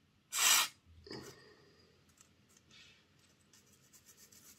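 A short hiss of aerosol contact cleaner sprayed through a straw onto a model locomotive's chassis about half a second in, then faint scraping and clicking of a small tool picking gunk out from around the wheels and axle.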